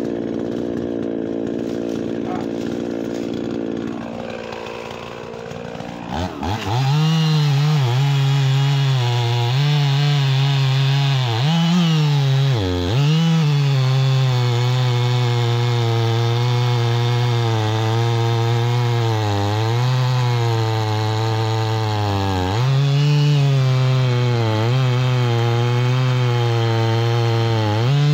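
Two-stroke chainsaw idling, then revved to full throttle about six seconds in and sawing through a fallen log. The engine note dips and recovers several times as the chain bites under load.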